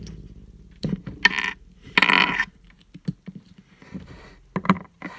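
Handling noise: the camera being set down and a LEGO minifigure and its pieces being handled. A few light clicks and knocks, with two short rustles in the first half.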